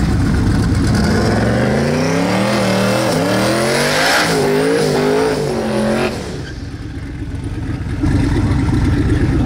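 Cars accelerating hard through the gears, the engine pitch climbing and dropping back at each shift, with a rush of noise as they pass. The sound cuts off suddenly about six seconds in, and a low idling engine rumble returns near the end.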